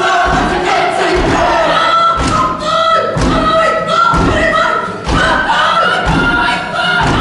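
A kapa haka group chanting and shouting in unison, punctuated every second or so by low thuds of stamping feet and slaps.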